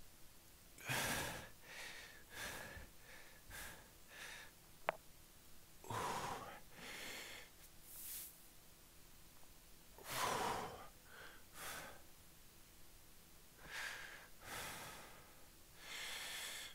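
A man breathing audibly during a stretch: slow, airy breaths in and out, one every four to five seconds. There is a single short sharp click about five seconds in.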